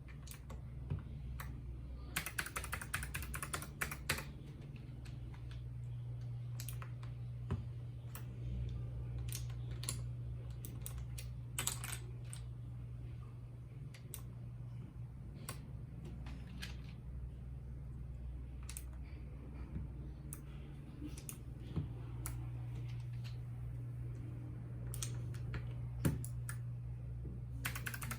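Keys on a RAKK Lam Ang Pro mechanical keyboard with bronze switches being typed on: scattered keystrokes with quick flurries about two seconds in and again at the very end, over a steady low hum.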